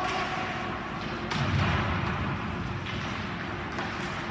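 Ice hockey play in a rink: a few sharp clacks of sticks, puck and boards over steady arena noise, the loudest a heavier hit about a second in followed by a short low rumble.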